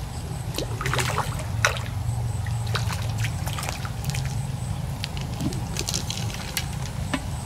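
Water sloshing and trickling, with scattered light clicks and taps.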